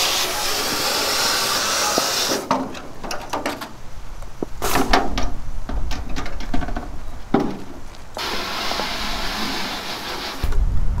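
Hose spray nozzle rinsing detergent off a galvanized sheet-metal duct: a steady hiss of water spray, then knocks and rattles as the metal duct is handled and stood on end, then spraying again. A low rumble starts just before the end.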